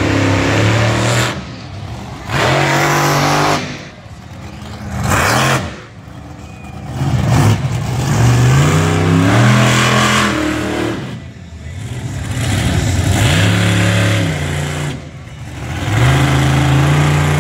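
Monster truck engine revving hard in repeated bursts, its pitch climbing and dropping with each throttle blip, dropping back between bursts.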